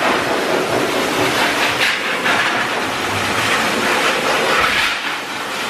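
Forced-air pet dryer blowing through its hose nozzle onto a wet dog's coat: a loud, steady rush of air.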